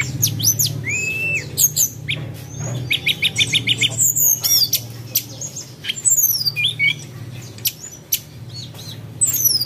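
Birds chirping, whistling and squawking in quick short calls, with a rapid trill about three seconds in, over a steady low hum.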